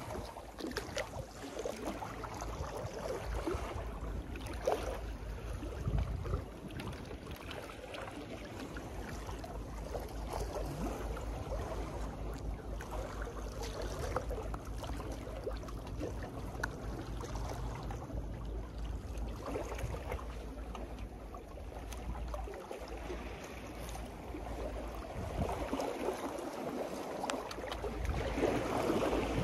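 Steady wash of sea water at a seawall with wind on the microphone: a continuous low rumble and hiss that swells louder near the end.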